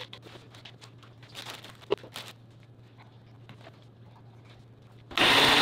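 Small clicks, taps and rustles as spinach and frozen fruit are handled into a single-serve blender cup, with a faint steady hum beneath. About five seconds in, a single-serve blender starts running, loud and sudden.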